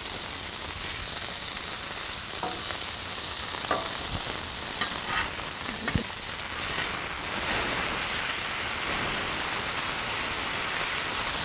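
Smashed beef burger patties sizzling steadily in their fat on a hot flat-top griddle, with a few light knocks in the first half.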